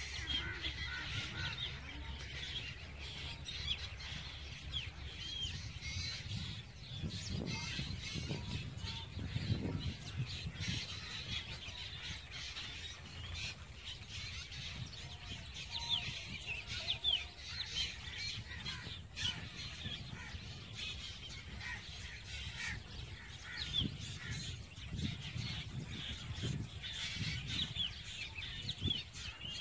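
Birds chirping and calling all through, many short overlapping chirps from several birds at once. Underneath is a low wind rumble on the microphone that swells a couple of times.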